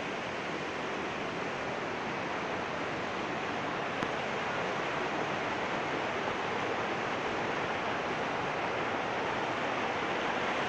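Steady rush of fast-flowing stream water, growing slowly louder.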